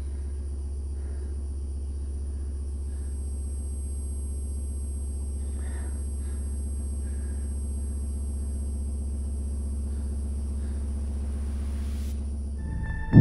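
A steady, low rumbling drone, a dark ambient sound bed, with a few faint soft sounds over it. It fades out near the end.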